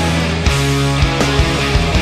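Rock music with guitar and drums, a steady band sound with regular drum hits.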